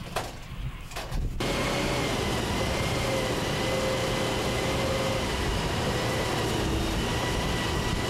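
An M109 self-propelled howitzer on the move, its diesel engine and tracks running steadily with a low rumble and a steady whine. Before that, about the first second and a half is quiet apart from a few clicks.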